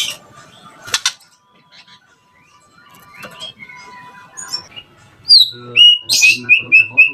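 White-rumped shama (murai batu) singing: after a few faint scattered chirps, loud song starts about five seconds in, a falling whistle then a quick run of repeated short notes, about five a second.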